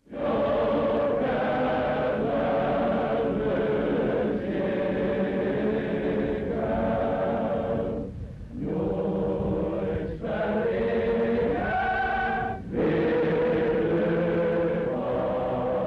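A choir singing in long held notes, with brief breaks between phrases, on a thin old film soundtrack.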